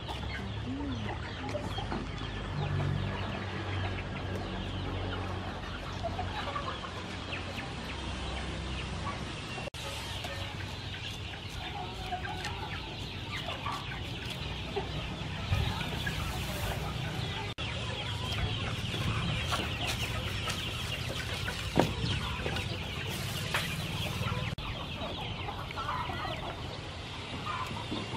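Chickens clucking over a steady high outdoor hiss, with one sharp click about two-thirds of the way through.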